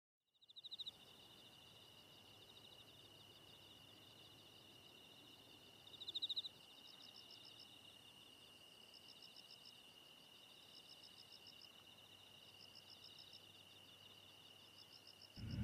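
Faint insects chirping: a steady high trill with repeated chirps above it, two of them louder, about half a second and six seconds in. A loud low rumble cuts in at the very end.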